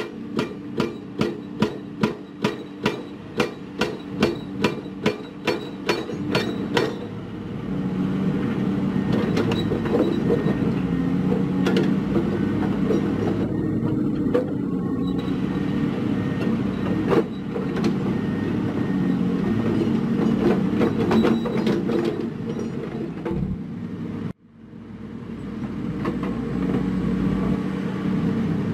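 Rhythmic heavy impacts, about two and a half a second, for the first seven seconds, then a heavy diesel construction machine's engine running steadily with occasional clanks. The sound cuts out abruptly near the end and comes back.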